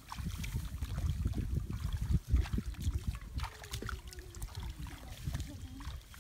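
Sloshing and splashing in shallow muddy water as people wade and grope by hand through a flooded rice field, over an irregular low rumble.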